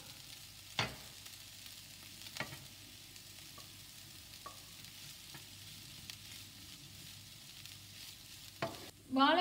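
Wooden spatula stirring grated raw banana in a nonstick pan over a faint sizzle of frying, with a few sharp knocks of the spatula against the pan, the clearest about a second in and near the end.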